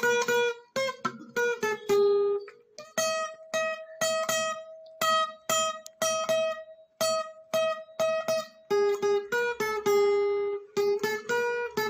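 Background music: a guitar picking a melody in single plucked notes, each ringing and fading.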